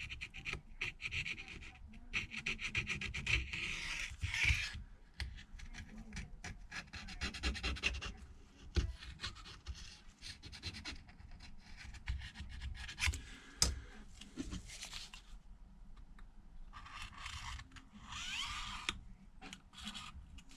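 Rubbing and scratching on the bare housing of a Samsung Galaxy Note 9 as it is cleaned of dust and dirt, in uneven scrubbing strokes with many small clicks between them.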